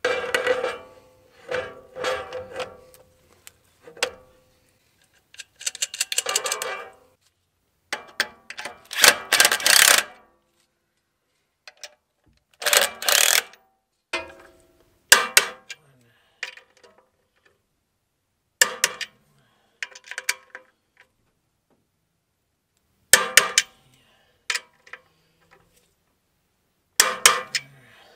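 Socket ratchet clicking in short bursts while the clutch pressure plate bolts are run down, with clinks of metal tools against the clutch.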